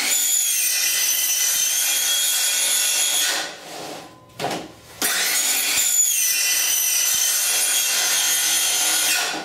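Circular saw running and cutting shallow, set-depth kerfs across vinyl siding, with a steady high-pitched motor whine. It makes two cuts: one of about three seconds, then, after a short break, a second of about four seconds.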